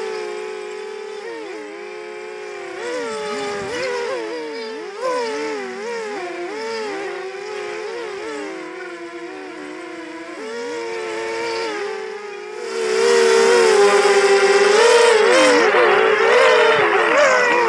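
Racing quadcopter's brushless motors and propellers whining as heard from the onboard camera, several tones rising and falling together with the throttle. About twelve seconds in it turns much louder and harsher.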